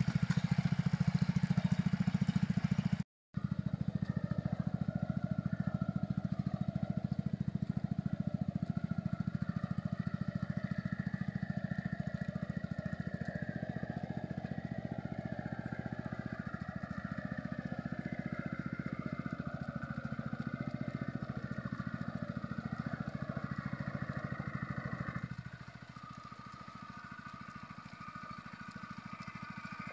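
Walk-behind hand tractor's small engine running steadily under load while harrowing a flooded rice paddy. The sound breaks off for a moment about three seconds in, and the level drops near the end.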